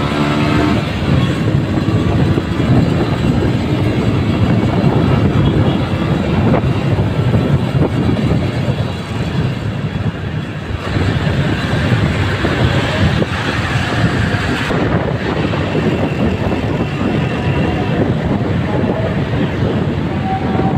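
Steady loud rush of engine, road and wind noise from a moving motorcycle in city traffic, with the engine note falling near the start.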